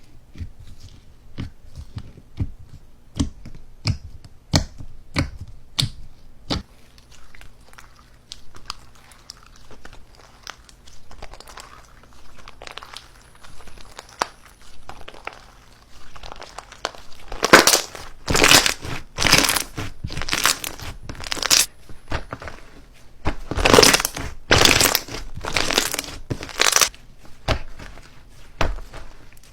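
Slime being squished and pressed by hand, crackling and popping. Sharp clicks and pops come first, then a softer stretch. Just past halfway, louder crackling squeezes come about once a second.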